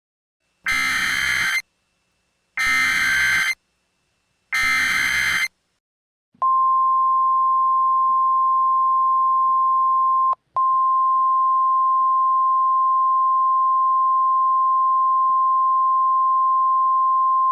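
Three Emergency Alert System SAME header data bursts, each a harsh buzzing blast about a second long, evenly spaced. About six seconds in, the NOAA Weather Radio 1050 Hz warning alarm tone starts: one steady, single-pitched tone, briefly broken about ten seconds in.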